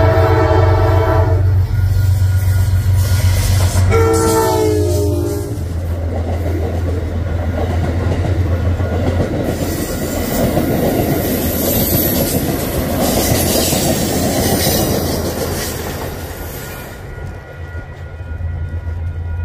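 Amtrak train horn: a multi-note chord that cuts off about a second and a half in, then one short blast around four seconds in. Then the passenger cars, ending with the 1948 Hickory Creek observation car, roll past with wheels clattering over the rail joints, and the sound fades as the train pulls away.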